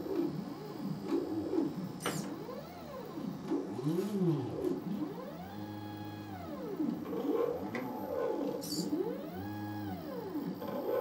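Stepper motors of a 3D-printed uStepper robot arm whining as the arm moves, each tone rising in pitch as a move speeds up and falling as it slows, several overlapping at once. Two short clicks, about two seconds in and near the end.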